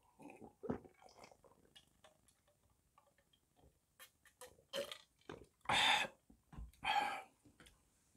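A man swallowing gulps of water from a jar, then two loud throaty burps about a second apart, near the end.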